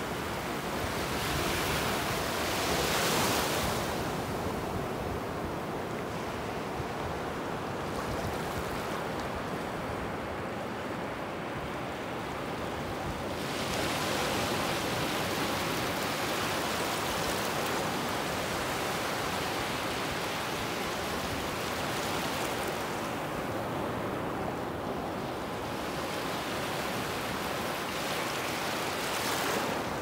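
Ocean surf breaking and washing ashore: a continuous rush of water that swells louder a few seconds in, again for several seconds from a little before halfway, and once more near the end.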